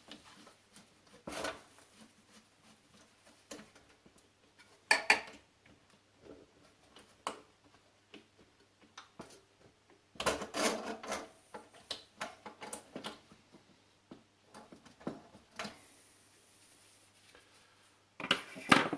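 Scattered clicks, knocks and rattles of parts being handled as a drill press's chuck safety guard is taken off, with a busy run of knocks about ten seconds in and a sharp knock near the end.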